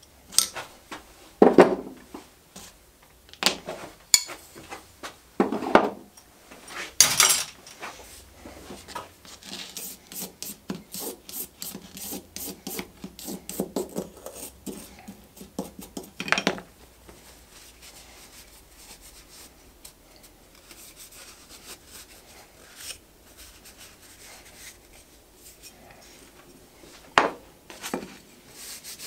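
A wire brush scrubs the wooden parts of an old fillister plane in a fast run of back-and-forth strokes, cleaning off dirt. The first seconds hold several sharp knocks as the wooden parts are handled. After the scrubbing comes quieter rubbing, and two more knocks sound near the end.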